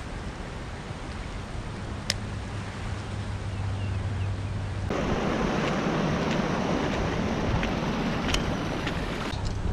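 Wind buffeting the microphone as a steady rushing noise that grows louder about five seconds in, with two sharp clicks.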